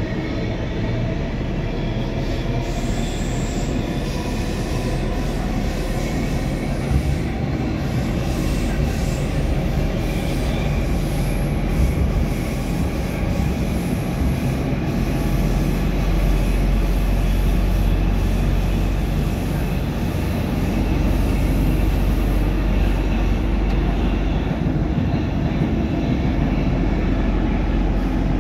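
Interior running noise of a Stockholm metro C14 car under way: a steady low rumble of wheels on rail, with faint high squealing tones from the wheels. The rumble grows a little louder about halfway through.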